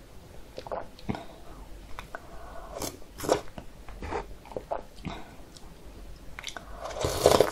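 Close-miked eating sounds: chewing and biting on a mouthful of thick, icy kongguksu (cold soy-milk noodle soup), with small scattered clicks and a louder slurp from the spoon near the end.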